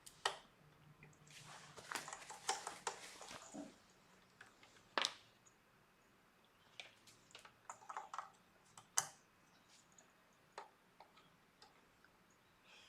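Hands handling cables and small plastic parts: scattered light clicks and taps, a short patch of rustling a couple of seconds in, and a few sharper single clicks like connectors being pushed home.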